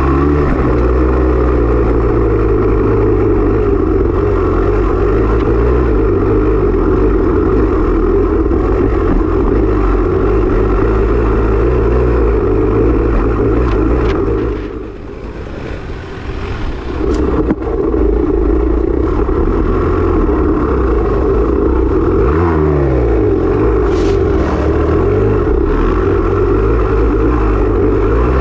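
Dirt bike engine running hard under throttle during a cross-country race. About halfway through it drops off for a couple of seconds before coming back on. Later the engine note dips and climbs again.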